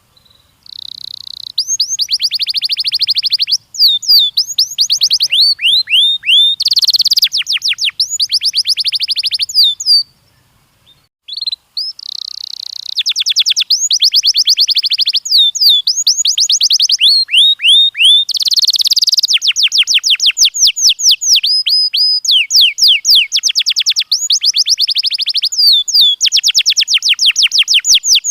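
Domestic canary singing: long bursts of rapid trills and fast repeated sweeping notes, with a short pause about ten seconds in before the song resumes.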